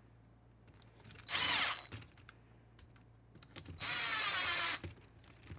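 Cordless drill-driver running in two short bursts, a brief one about a second and a half in and a longer one around four seconds, its motor whine rising and falling in pitch.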